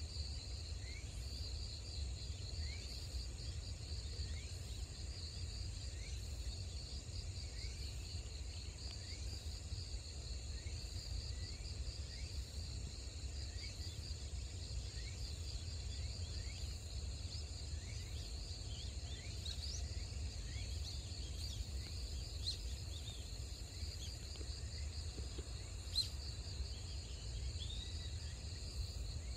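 Steady chorus of insects trilling, with a short rising chirp repeating about once a second, over a low rumble. A single sharp click sounds near the end.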